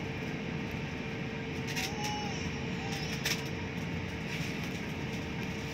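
Steady cabin noise inside an Airbus A350 taxiing onto the runway: a low, even rumble of engines at taxi power and air systems, with a thin steady hum. Two short sharp clicks sound about two and three seconds in.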